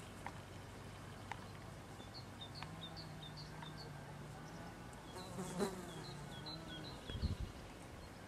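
A flying insect buzzing, a low hum that wavers slightly in pitch. Twice a small bird sings a run of short high chirps, about four a second. There is a brief louder noise about five and a half seconds in and a few low thuds near the end.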